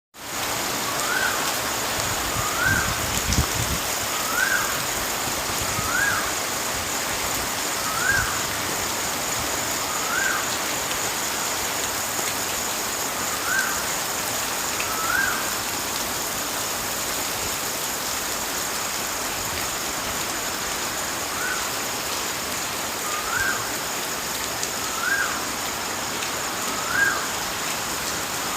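Steady rush of water, with a bird repeating a short rising-and-falling call every second or two and pausing partway through. Two brief low rumbles come in the first ten seconds.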